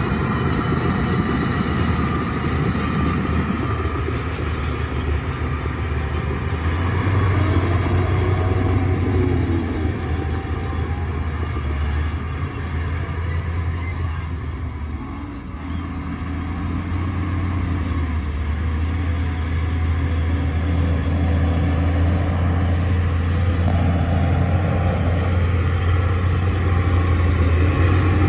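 Shantui bulldozer's diesel engine running steadily while the machine works. The engine eases off briefly about halfway through, then picks up again.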